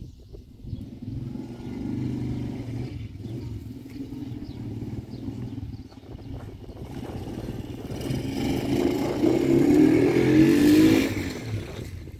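A vehicle engine running, growing louder from about two-thirds of the way through, loudest near the end, then fading away.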